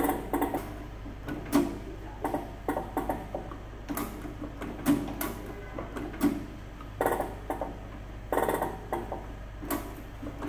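Manual dog tag embossing machine: its character dial clicking from letter to letter as it is turned, with a few heavier clunks as the lever is pulled to stamp characters into the metal tag.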